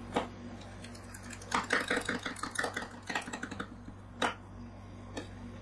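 Two metal spatulas chopping ice cream base on a steel cold plate, with sharp metallic clicks. A single click comes early, then a quick run of rapid taps about one and a half seconds in that lasts around two seconds, then two more single clicks near the end, over a steady low hum.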